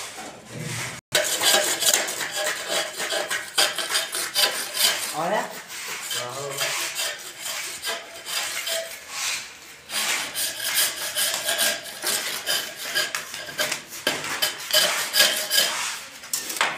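Rapid, repeated rasping strokes of a hand tool worked along the edge of a gypsum board strip, shaving and trimming it.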